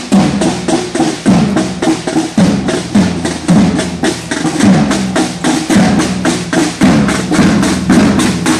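Marching snare drums beating a fast, steady march cadence, with a bass drum thumping under them every half second or so.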